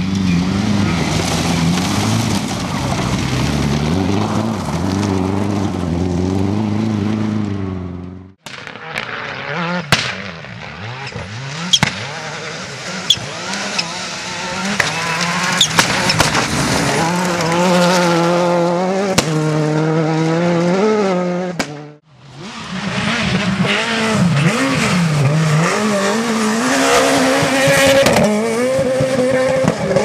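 Rally car engines at high revs on a loose dirt stage, pitch climbing and dropping through gear changes over three separate passes, the first from an Opel Astra rally car. During the second pass there are sharp cracks in quick succession.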